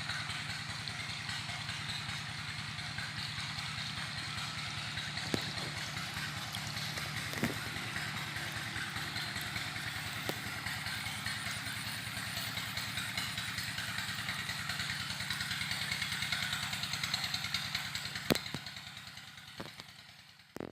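Small engine running steadily, powering a pump that sucks shrimp waste out of a pond, with a few sharp knocks. The sound fades away near the end.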